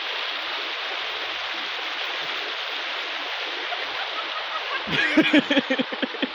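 Steady rush of flowing water, like a stream running over rocks. About five seconds in, a person's voice cuts in with a few short words.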